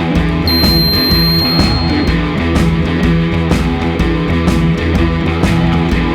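Background rock music with a steady beat and guitar. A high, steady electronic beep sounds over it about half a second in and cuts off after under two seconds.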